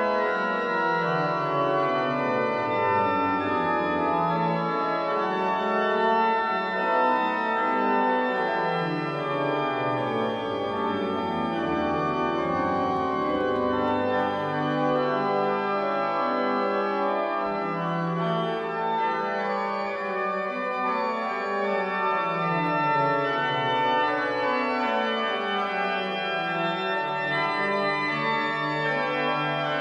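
Church pipe organ playing a dense many-voiced passage, with sustained chords above a bass line that walks down and back up several times.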